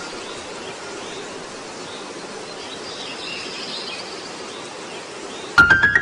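A steady, even hiss of ambient noise with faint high chirps over it. About half a second before the end, a quick cluster of bright struck notes leads into piano music.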